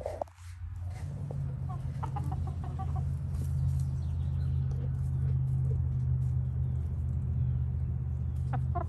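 Chickens clucking softly a few times, with a quick run of clucks near the end, over a steady low hum.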